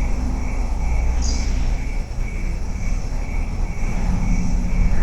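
Outdoor night ambience: a steady low rumble under an insect chirping about three times a second, with a steady low hum coming in near the end. The rumble and hum are the unexplained noise heard from the rocks.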